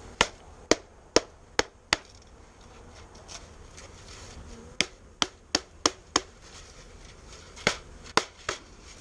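A bee package being knocked hard to shake the last bees out into the hive: sharp knocks in three quick runs of five, five and three.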